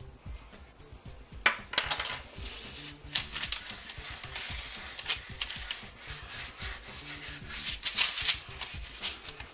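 Gloved hands rubbing paprika into a raw beef roast, with the paper under it rustling and crinkling. About a second and a half in, a metal spoon clinks. Soft background music.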